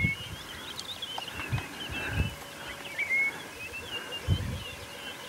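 Outdoor natural ambience of many birds chirping and whistling, with a few short low thumps.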